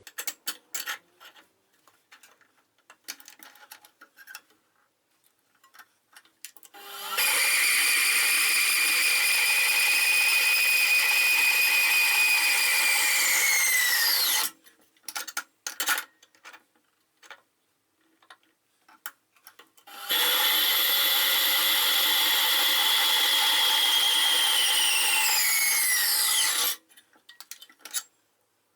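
Power tool cutting through steel in two runs of about seven and six seconds, a steady whine over the cutting noise; after each cut the whine falls away as the motor is switched off and spins down. Short clicks and knocks of handling between the cuts.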